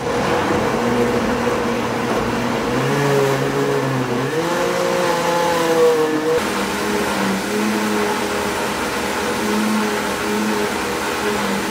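Electric blender running, grinding radish, ginger and pear with water into a fine purée. It starts and stops abruptly, and the motor's pitch rises and shifts about four seconds in as the load changes.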